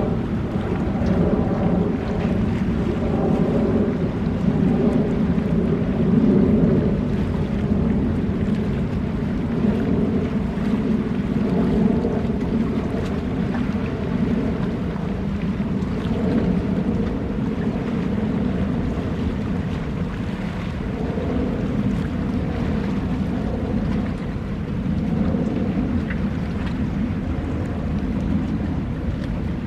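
Steady low rumble of wind and surf on a rocky shore, with a faint steady hum underneath.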